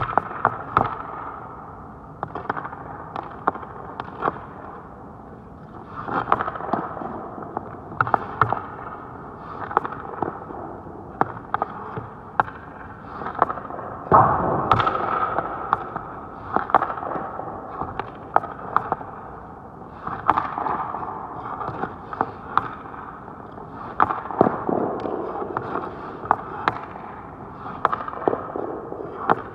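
Ice hockey pucks being shot at a goaltender: a steady run of sharp cracks as sticks hit pucks and pucks hit pads and boards, with skates and stick blades scraping the ice between shots. The loudest crack comes about halfway through.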